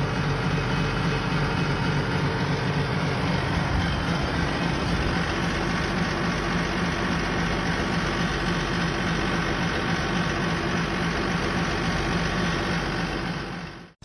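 Noisy air conditioner running with a loud, steady mechanical drone and a fast rattling buzz.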